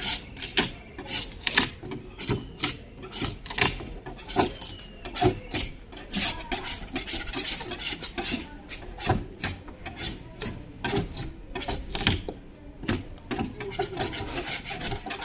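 Hand-worked abrasive strokes rasping over a surface during the refurbishing of a commercial fridge, irregular, about one or two strokes a second.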